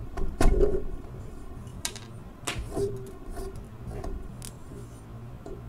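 Hand lino-cutting gouge carving into a linoleum block: several short scraping cuts at irregular intervals, the loudest about half a second in, as strips of lino are pushed off.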